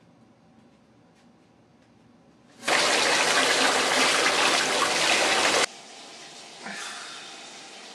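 Bathtub faucet running full, water gushing from the spout into the tub as a loud steady rush for about three seconds, then cutting off suddenly. A much fainter steady hiss follows.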